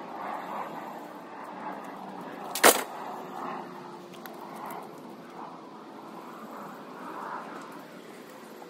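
One sharp, loud bang about three seconds in, over a steady background hum of a vehicle on the street.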